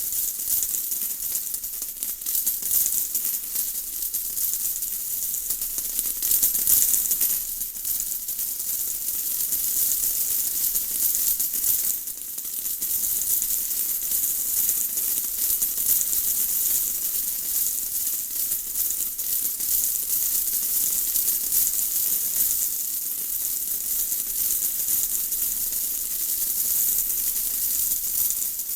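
Steady rain falling, a dense high hiss of fine drops pattering without a break.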